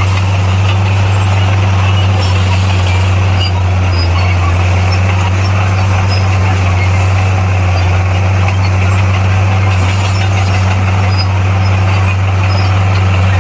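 Bulldozer's diesel engine running steadily with a constant low drone that does not change in pitch.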